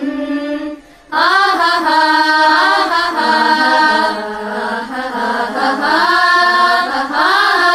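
Voices singing a Malayalam patriotic song, drawing out its closing phrase in long notes that glide up and down, with a brief pause for breath about a second in.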